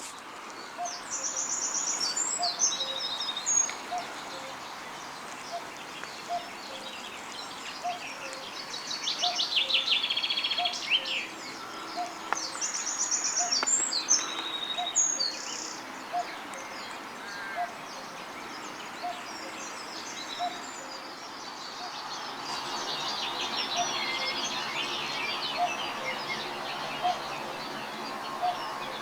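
Common cuckoo giving its two-note 'cuck-oo' call over and over at a steady pace, while small songbirds sing high trilling phrases over it at intervals.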